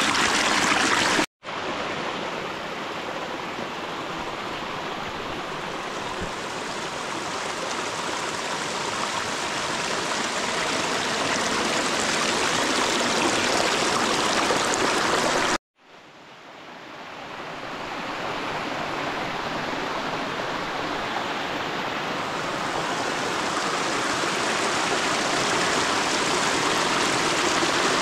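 Small mountain stream rushing and splashing over rocks in low cascades, a steady wash of water. It cuts out abruptly twice, about a second in and about halfway through, and the second time fades back up over a couple of seconds.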